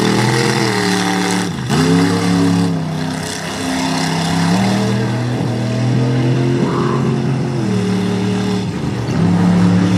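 One-ton Chevy step-side mud truck's engine running hard and revving, its pitch rising and falling. The pitch drops sharply twice, once about two seconds in and once near the end, as the driver shifts without lifting off the throttle.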